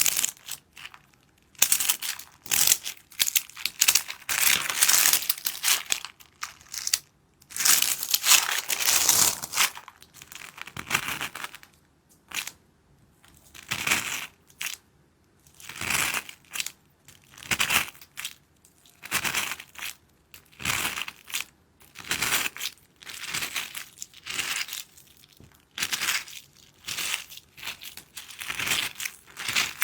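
ASMR crushing and squishing of water beads (hydrogel beads), a run of short crunchy, crackling bursts that come thickly at first and then settle into about one squeeze every second or so.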